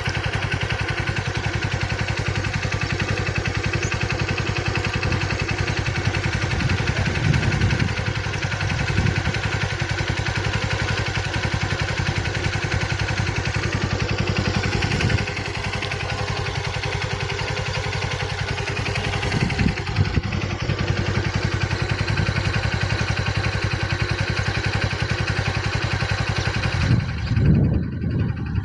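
An engine running steadily with a fast, even pulse; its higher sound cuts out near the end.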